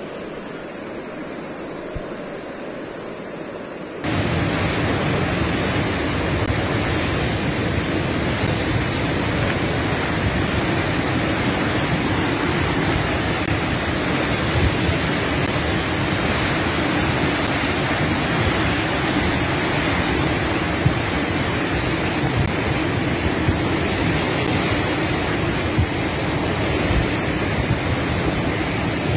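Steady roar of a river in flood, muddy water rushing past in a torrent. About four seconds in it jumps to a much louder, brighter roar.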